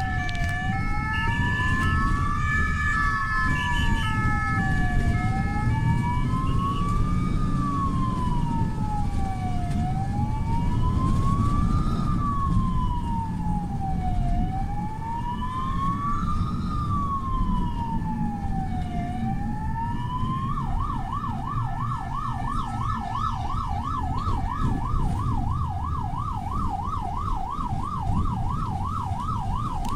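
Electronic emergency sirens heard from inside a Belgian ambulance under police escort: a slow rising and falling wail that switches to a fast yelp after about twenty seconds, with a stepped two-tone hi-lo siren alongside. Steady engine and road noise runs underneath.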